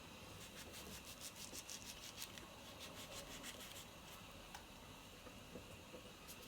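Faint quick scraping strokes, roughly six a second for about three seconds, from a kitchen knife working on food being prepared; a few light clicks follow.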